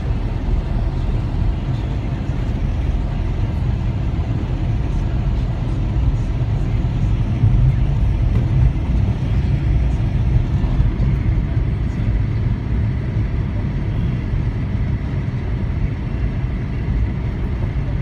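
Car engine and tyre noise heard from inside the cabin while driving in city traffic: a steady low rumble.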